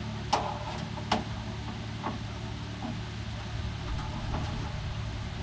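Metal engine parts knocking as they are handled out of an ultrasonic cleaner: two sharp knocks in the first second and a half, then a few fainter taps, over a steady low hum.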